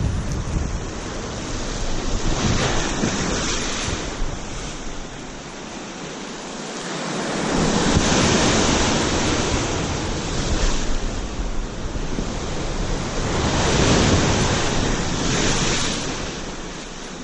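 Ocean surf breaking and washing over dark lava rocks, swelling loudest twice (about halfway through and again near the end) and easing between. Wind buffets the microphone.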